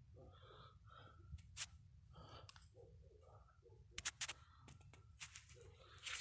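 Faint handling noises: scattered light clicks and rustles, with a few sharper clicks about four seconds in, over a faint low rumble.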